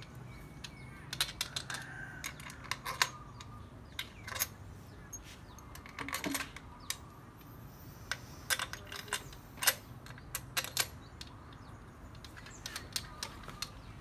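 Irregular metallic clicks and clinks of hand tools and small engine parts being handled during motorcycle engine assembly, coming singly and in quick clusters.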